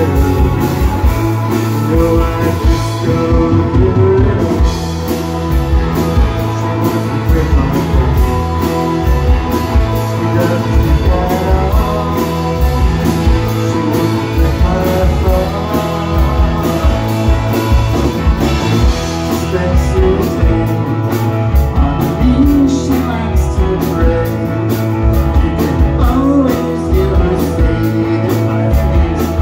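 Live rock band playing loudly: two electric guitars, one a Rickenbacker, over electric bass and a drum kit, with a lead vocal sung over the top.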